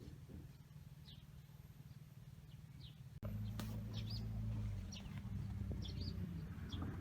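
Small birds chirping, a series of short high chirps, over a steady low rumble that shifts abruptly about three seconds in.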